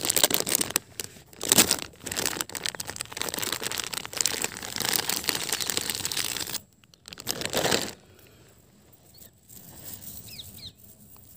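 Clear plastic wrapping crinkling and rustling as it is pulled open and peeled off a piece of jewellery, with a last short rustle after a brief pause; it goes quiet after about eight seconds.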